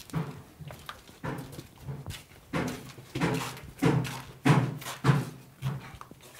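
An animal calling over and over: a rhythmic run of pitched cries, one every half second or so, building to its loudest past the middle and stopping shortly before the end.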